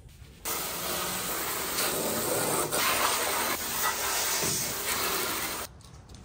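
A hand-held spray wand on a hose hissing steadily as it blasts the underside of a truck bed clean. It starts abruptly about half a second in and cuts off suddenly near the end.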